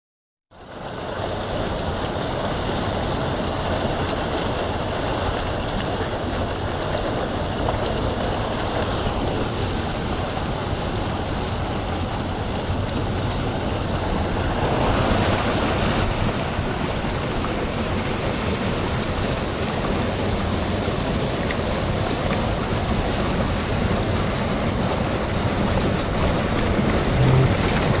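River water rushing and splashing over rocks in a small cascade, a steady loud rush that starts about half a second in.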